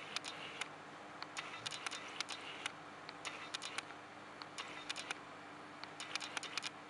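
Sharp clicks in quick clusters, several times over, from an animal in a marine reef aquarium, taken for a creature knocking at the live rock. A steady low hum runs underneath.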